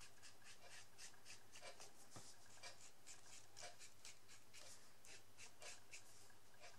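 Faint, quick scratchy strokes of a brush-tip marker on a rubber stamp, about three a second, as the stamp is inked in brown.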